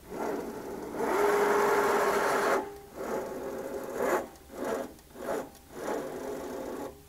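Electric motor of a powered wheel-lift dolly driving its carriage up the mast. It makes one longer run with a steady whine, then four short bursts as it is jogged into position.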